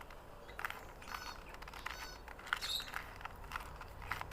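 Plastic 2×2 Rubik's cube being twisted by hand: an irregular run of small clicks and scrapes as its layers turn during the final moves of the solve.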